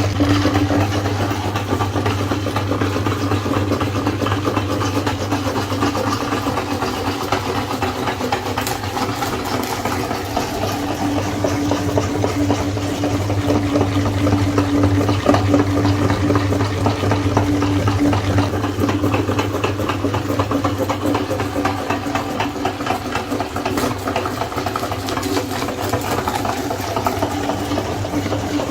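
Electric meat grinder's motor running steadily with a constant hum while grinding food.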